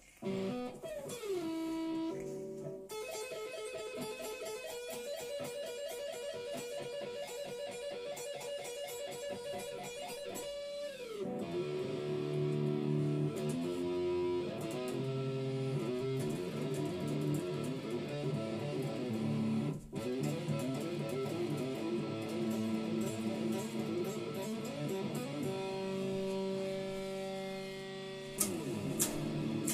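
Electric guitar playing riffs, with several downward pitch slides and a stretch of fast repeated picking on held notes, then lower chords.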